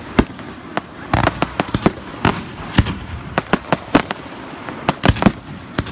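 Aerial fireworks bursting: a rapid, uneven barrage of about twenty sharp bangs in a few seconds over a continuous background noise.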